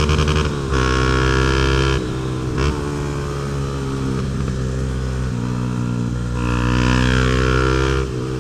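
Honda CB Twister single-cylinder engine through a Protork Mine 3 sport exhaust while riding, the note stepping up and down several times with throttle and gear changes. The owner calls it 'berrando' (bellowing).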